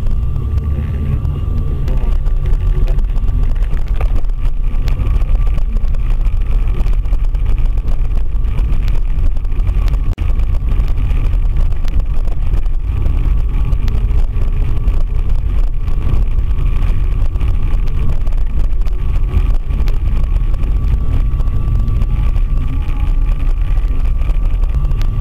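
Steady low rumble of a car driving, heard from inside the cabin: engine and road noise with a faint steady whine.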